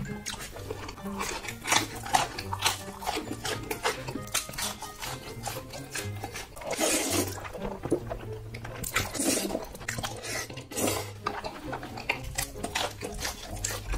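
Close-miked chewing of a mouthful of jajangmyeon noodles and sweet and sour pork: rapid wet smacks and clicks, with a few longer wet rushes about seven, nine and eleven seconds in.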